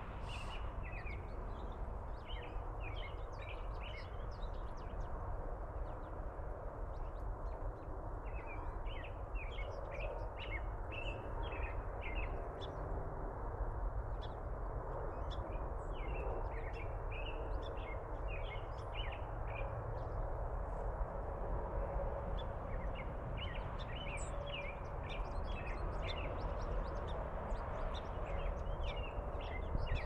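Small songbirds chirping in quick runs of short, high notes, coming in clusters on and off, over a steady low outdoor rumble.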